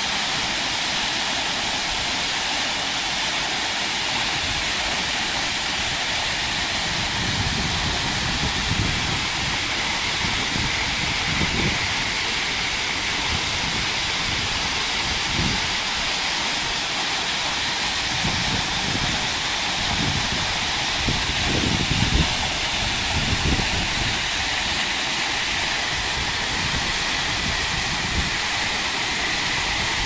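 Waterfall rushing steadily, water pouring and splashing onto rocks close by. An uneven low rumble comes and goes through the middle stretch.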